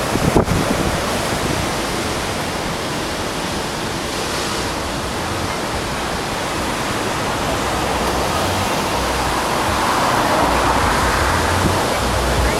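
Big ocean surf breaking and washing: a steady, loud rush that swells toward the end, with a brief knock about half a second in.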